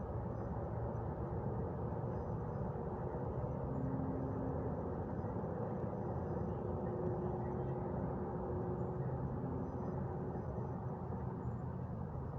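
Steady outdoor ambience of wind and the continuous low rumble of distant city traffic, with a faint engine hum that holds for a few seconds in the middle.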